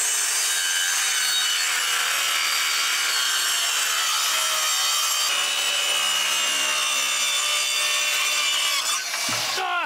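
Corded circular saw cutting through a sheet of OSB, the motor giving a steady high-pitched whine under load through one long cut. The saw winds down near the end.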